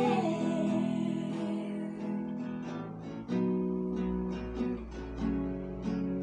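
Classical nylon-string guitar strummed in a steady rhythm, changing chords, as an instrumental passage between sung lines. Two women's voices end a held note about half a second in.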